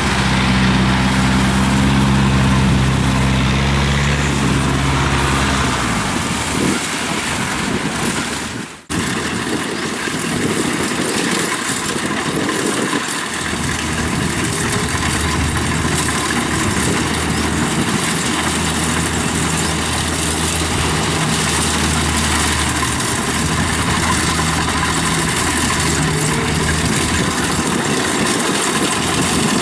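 Kubota rice combine harvester running, its engine hum steady at first and then mixed with a steady rush of machine noise. A brief break about nine seconds in.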